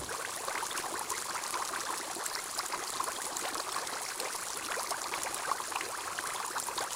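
Water bubbling and trickling in a fish tank: a steady, dense spatter of small splashes.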